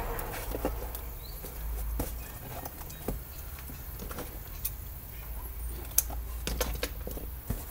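Scattered light knocks and taps of hands handling and pressing on a corrugated cardboard model, over a steady low rumble.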